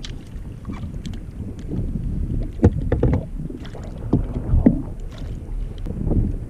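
Water sloshing against a fishing kayak with wind rushing on the microphone, as a small hooked redfish is brought alongside and lifted. A few sharp knocks and splashes come between about two and a half and five seconds in.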